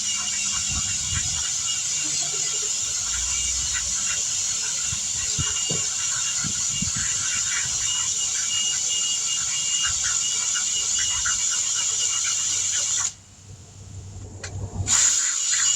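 Air-powered tire buffer running at high speed, a steady high-pitched whine with hiss, roughing the rubber around a nail hole to prepare it for a patch. It stops about 13 seconds in and starts again near the end.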